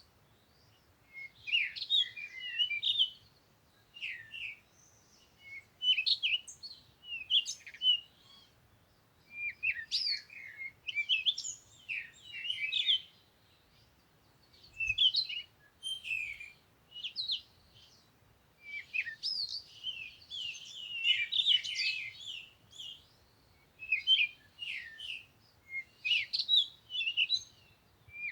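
Songbirds singing: bursts of high chirps and quick trills, each phrase a second or two long, with short pauses between phrases.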